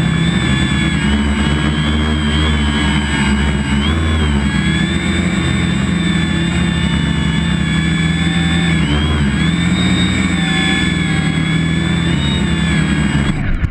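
Quadcopter's electric motors and propellers whining loudly, heard from the on-board camera. The whine rises and falls in pitch as the throttle changes, and cuts off abruptly near the end.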